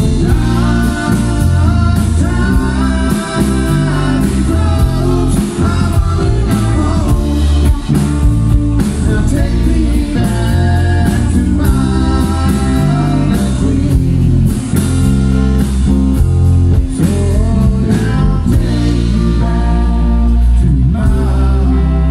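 Live rock-blues band playing loud: a singer over electric guitars, a drum kit and heavy bass.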